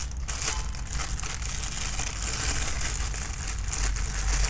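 Thin plastic bag crinkling as hands handle and unwrap a camera lens in it, over a steady low rumble.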